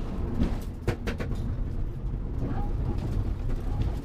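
Mitsubishi Lancer Evolution IV rally car's turbocharged four-cylinder engine pulling at speed on a gravel stage, heard inside the stripped cabin with steady road and tyre rumble. A few sharp knocks about a second in.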